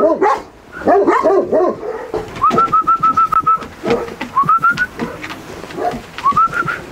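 Caucasian Shepherd dog whining and yelping. About a second in there is a burst of short yelps, then three quick runs of short, high whimpering notes, the last two rising in pitch.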